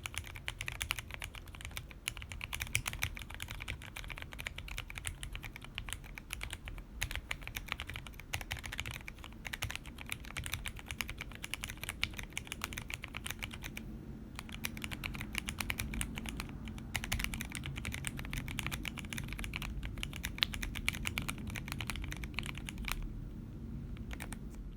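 Fast, continuous typing on a mechanical keyboard with lubed and filmed Cherry MX Black Hyperglide linear switches (67 g springs), PBT Cherry-profile keycaps and 3D-printed PLA plates over foam. The typing pauses briefly a few times.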